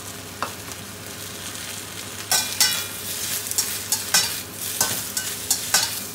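Chinese cabbage stems and mushrooms sizzling in a stainless steel wok while being stir-fried with a metal spatula. About two seconds in, the spatula starts scraping and knocking against the wok, several strokes a second, each with a short metallic ring over the steady sizzle.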